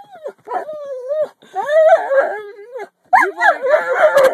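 A dog 'talking': three long, wavering whine-howls in a row, sliding up and down in pitch, in answer to its owner.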